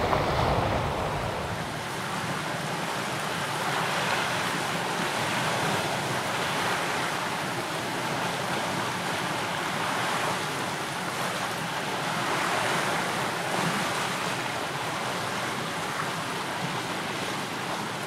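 Ocean surf washing against a rocky shore, swelling and easing every few seconds. Wind rumbles on the microphone for the first second or two.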